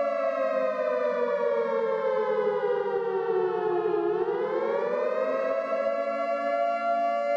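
Emergency siren sounding a chord of steady tones that slides slowly down in pitch for about four seconds, then climbs back up and holds steady again.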